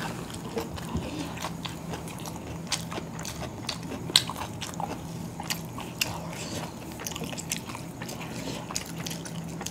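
Close-miked chewing of chicken biryani, two people eating rice by hand, heard as a run of small wet mouth clicks and smacks, with a faint steady hum underneath.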